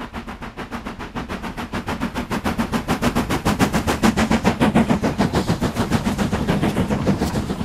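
Steam locomotive working hard, its exhaust beating rapidly in an even rhythm of several chuffs a second. It grows louder toward the middle and then eases off slightly as it passes.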